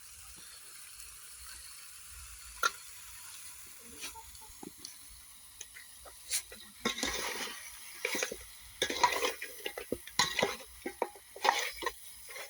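Food being stirred and scraped in a cooking pan. It starts as a faint hiss with a single sharp click a little before three seconds in, then turns to irregular scraping and clattering from about six seconds in.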